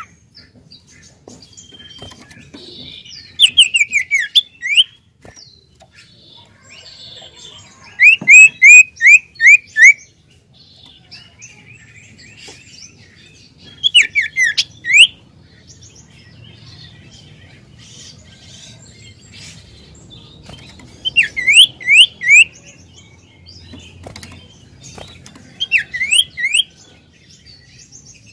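Common iora calling: five bursts of four to six quick, falling whistled notes, spaced several seconds apart, with faint soft chirps between them.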